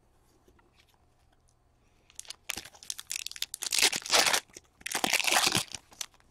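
A hockey card pack's wrapper being torn open and crinkled in the hands as the cards are pulled out. The crackling starts about two seconds in and comes in two loud bursts near the middle.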